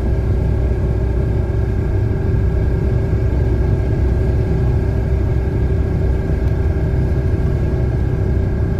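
A steady, unbroken mechanical rumble with a constant whining tone riding over it, the strange noise itself.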